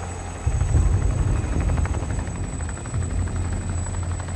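Airbus Helicopters EC665 Tigre attack helicopter's rotor thudding and twin turboshaft engines running as it takes off and pulls away. The rotor noise steps up about half a second in, then holds steady.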